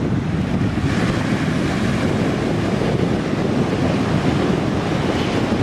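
Sea surf washing onto the beach, a steady rush with a wave breaking about a second in, and wind buffeting the microphone.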